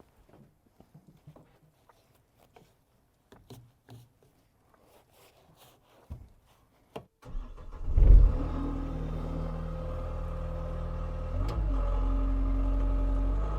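Caterpillar skid steer's diesel engine cranking and catching about seven seconds in, with a loud surge as it fires, then running steadily with two brief rises in engine speed. Before it starts, scattered faint clicks and knocks.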